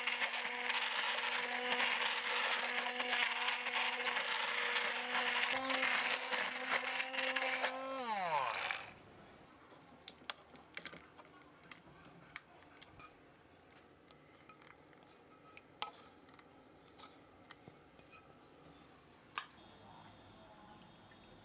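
Electric blender motor running at speed with a steady whirring hum, switched off about eight seconds in and spinning down with a falling whine. Small clicks and taps follow, as of the jar and lid being handled.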